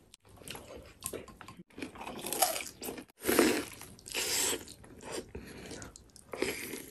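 Close-miked mukbang eating sounds: biting into and chewing pork, with some crunching. The sounds come in short stretches broken by sudden brief silences.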